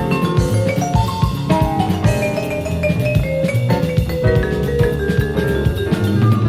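Live jazz combo playing: quick vibraphone notes over drum kit and bass.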